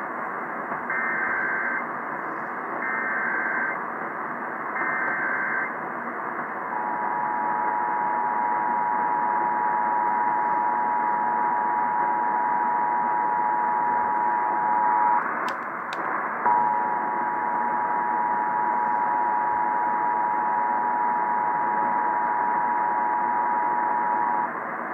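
Emergency Alert System test heard over a radio. Three short bursts of the digital SAME header come first, then the two-tone EAS attention signal (853 and 960 Hz) starts about seven seconds in and holds to near the end, broken once about halfway by a brief dropout with two clicks. Steady hiss lies under everything.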